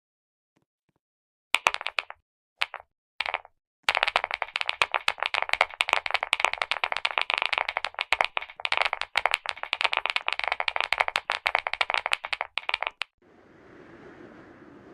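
Clicky keyboard keys pressed in rapid flurries, like fast typing: a few short bursts, then a long dense run of sharp clicks that stops abruptly near the end, leaving a faint steady hiss.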